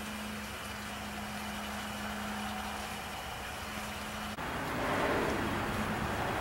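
Steady vehicle engine and outdoor background noise with a steady hum. An abrupt cut about four seconds in changes it to a louder, hissier noise.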